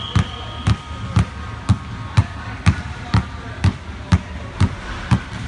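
Two basketballs dribbled together on a hardwood gym floor, bouncing in a steady rhythm about twice a second.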